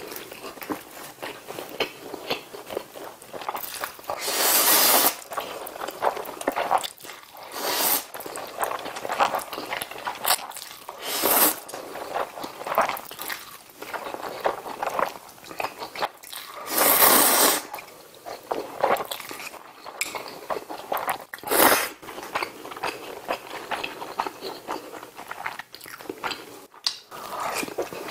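A person eating close to the microphone: wet chewing of ramyeon noodles and rice, broken by a few loud slurps, the longest about four seconds in and about seventeen seconds in.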